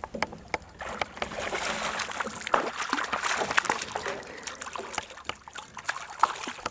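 Water splashing and sloshing, with many sharp ticks and spatters, as a hooked largemouth bass thrashes at the surface while being reeled in.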